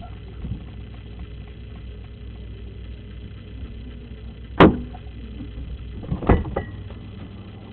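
Two sharp knocks of things being handled at a refrigerator, about a second and a half apart, over a steady low hum.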